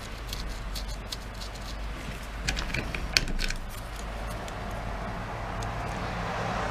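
Light clicks and taps of a rubber power cord and its crimped wire terminals being handled and fitted into a plastic grinder housing, with one sharper click a little after three seconds. A low steady hum runs underneath, and a soft rushing noise builds toward the end.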